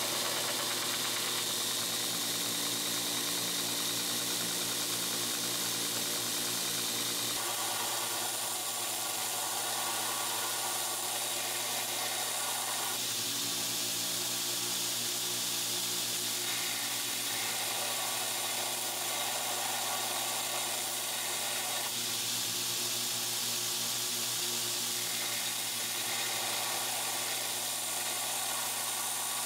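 Belt grinder running with a 5160 steel knife blade held against the belt: a steady grinding hiss over the motor hum that changes every few seconds as the blade is pressed on and lifted off in passes.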